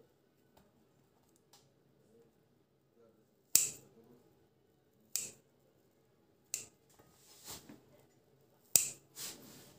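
Kitchen scissors snipping, the blades closing with four sharp clicks a second or two apart and a few softer ones between.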